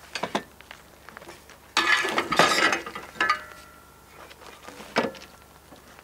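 Archery gear being handled while bows are checked for draw weight: sharp clicks and clinks, a brief rustling scrape with knocks in the middle, and a click that leaves a short metallic ring a little after three seconds in.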